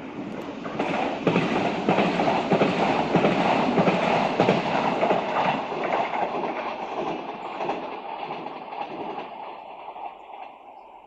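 Renfe train passing along the track: a rushing, clattering run of wheels on rail with repeated clicks as the wheels cross the rail joints. It swells about a second in, stays loud for several seconds, then fades away as the train moves off.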